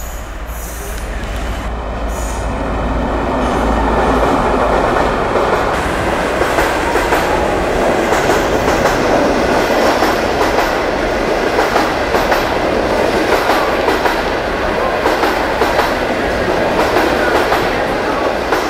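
A passenger train hauled by a CNR CKD8G diesel-electric locomotive passing at speed, growing louder over the first few seconds as it arrives, then a steady rush of wheels clattering over rail joints as the coaches go by. A thin high whine sounds during the first few seconds.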